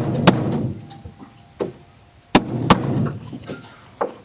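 Sharp knocks and cracks of a hammer and pry bar working boards off a wooden shipping crate, about five separate hits.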